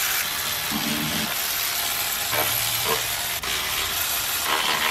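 Steam and air hissing steadily out of the cracked-open coolant bleeder screw on a hot BMW M30B35 straight-six after a long run, as the cooling system is bled.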